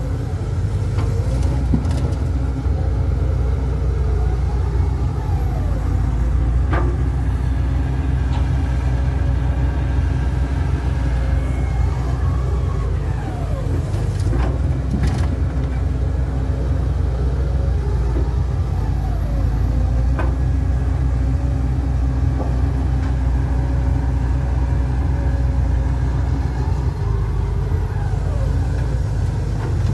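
Komatsu HB205-1 hybrid hydraulic excavator loading a dump truck: a steady low engine rumble with whines that rise and fall in pitch as it swings and works its hydraulics, and a few sharp knocks.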